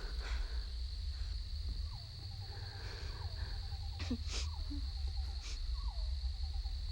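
Night insect chorus: a steady high drone of crickets, with a small animal call repeating about every second and a half, each one a falling glide into a quick run of short notes, over a low rumble. A few sharp clicks come about four seconds in.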